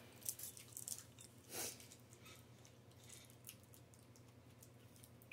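Faint mouth sounds of someone chewing a soft fruit chew sweet: small scattered wet clicks in the first few seconds, with a faint soft rush about a second and a half in.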